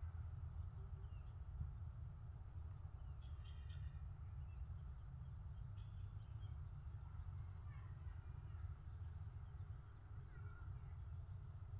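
Outdoor field ambience: a steady, high-pitched insect drone with a few faint bird chirps over it, and a low rumble.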